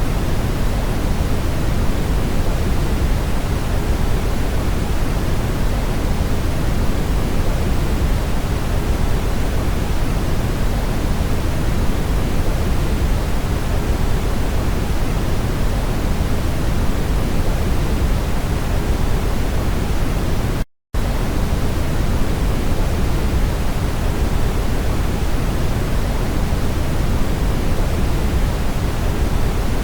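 Steady brown noise: an even, unchanging hiss weighted toward the low end, with no drips or tones in it. A split-second gap of silence breaks it about two-thirds of the way through.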